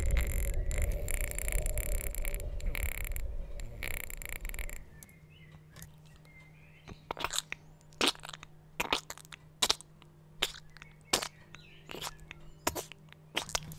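Mouth-made sound effects: a loud noisy rumble with spluttering crackles that stops about five seconds in, then a run of sharp mouth clicks, about one or two a second.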